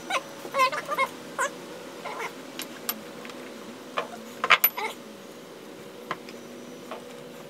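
A cat meows a few short times in the first second and a half. Metal butterfly-valve parts clink and tap against each other and the wooden bench as they are handled, loudest about four and a half seconds in. A steady hum runs underneath.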